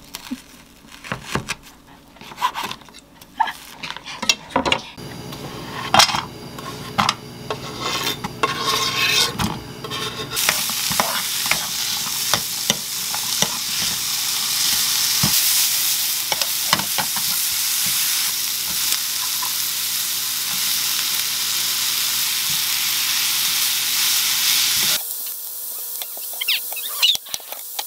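A kitchen knife chops frozen bacon on a wooden cutting board in quick sharp knocks. Then bacon and onion sizzle in a frying pan while a wooden spoon stirs them; the sizzle grows loud and steady about ten seconds in and stops suddenly near the end, leaving quieter clicks and scrapes of stirring.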